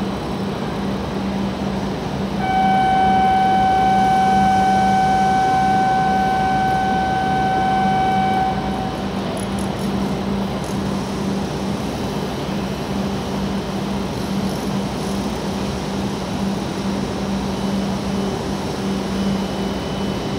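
A W7 series shinkansen stands at the platform with a constant low hum. A steady electronic tone sounds for about six seconds, a platform departure signal before the train leaves.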